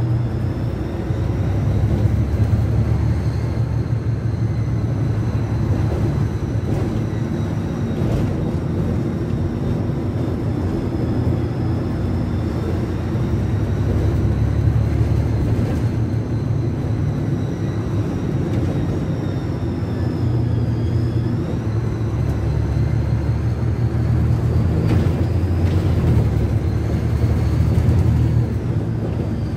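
Volksbus 18.280 OT's MAN D08 inline six-cylinder diesel running, heard from inside the bus cabin as a heavy rumble that swells and eases. Over it sits a high whistle in two tones that drifts slowly up and down. The whistle is put down to the air-conditioning belt, though it could be the turbo.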